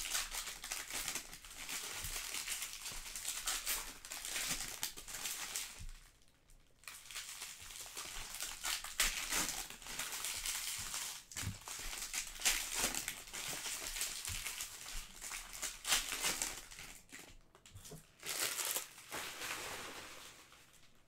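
Foil trading-card pack wrappers crinkling as the packs are torn open and handled, with a short lull about six seconds in and the rustling dying down near the end.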